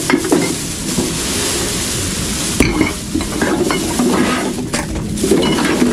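Plastic rubbish bags rustling and crinkling as trash is gathered and handled, with scattered clicks and clinks, over a faint steady low hum.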